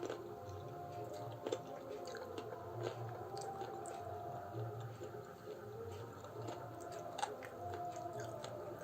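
Close-up chewing and wet mouth sounds of a person eating roti with chicken curry, a steady run of chews with small smacking clicks.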